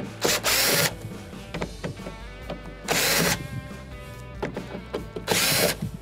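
Cordless drill/driver spinning Phillips screws out of a dryer door panel in three short bursts, each about half a second long and roughly two and a half seconds apart.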